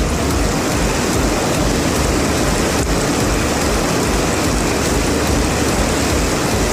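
Heavy rain pouring down in a steady hiss, with rainwater running off.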